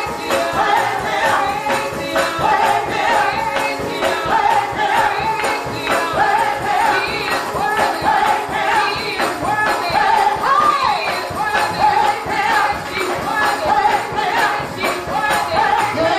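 Upbeat gospel praise music: voices singing over a fast, steady beat of percussion.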